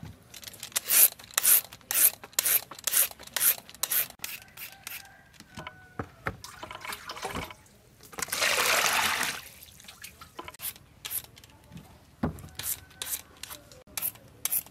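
Water poured into a plastic basin, a splashing rush lasting about a second and a half some eight seconds in. Before it comes a quick run of sharp clicks and knocks from vegetables being handled, and after it scattered knocks and small splashes.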